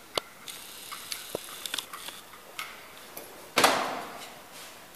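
Small metal clicks and ticks as the parts of a plunger-type fuel feed pump are handled and fitted together over a steel tray, with one louder metal knock about three and a half seconds in that fades over about half a second.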